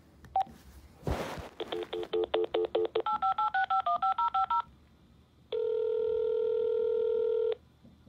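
A telephone redialing over its speaker: a key beep, a short burst of line noise as the line opens, a quickly pulsed dial tone, then a fast run of touch-tone digits. About a second later comes one steady two-second ringback tone.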